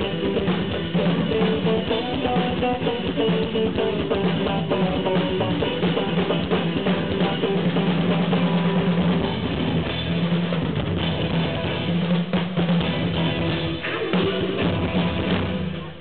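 Live band playing an instrumental passage on electric guitars and a drum kit, with a steady beat, the music stopping abruptly near the end.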